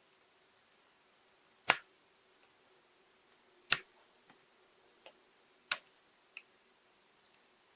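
Sharp single clicks and taps as a laptop is taken apart: three loud ones about two seconds apart, with a few fainter ticks between the last two.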